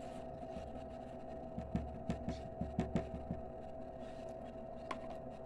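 Small water pump humming steadily. About two seconds in comes a quick run of light clicks, roughly eight in under two seconds.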